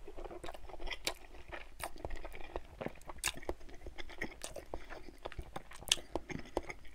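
Close-miked chewing of a mouthful of cheesy scrambled eggs with ketchup and hot sauce: wet mouth clicks and smacks at an uneven pace.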